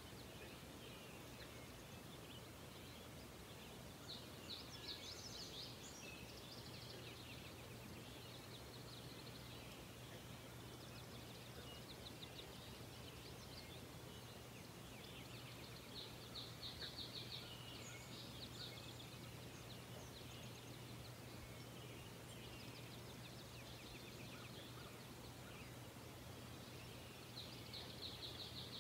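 Faint birdsong, with songbirds giving rapid high trills in several bouts and the loudest about five seconds in, about seventeen seconds in and near the end. A steady low hum and hiss run beneath.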